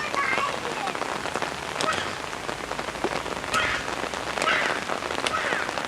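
Steady rain falling and pattering on surfaces, with a few brief high-pitched calls over it.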